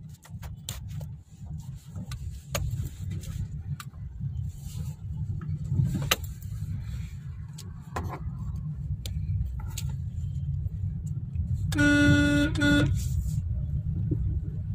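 Steady low rumble of a vehicle moving through city traffic, with scattered light clicks. Near the end a vehicle horn honks once for about a second.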